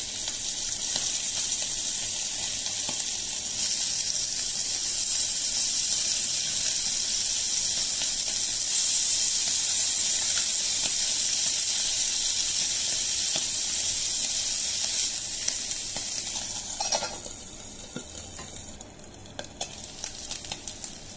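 Masala-coated anchovies shallow-frying in oil in a pan over a medium flame, sizzling steadily while metal tongs turn them with occasional clicks. The sizzle drops noticeably about three-quarters of the way through, with a few metal clinks around then.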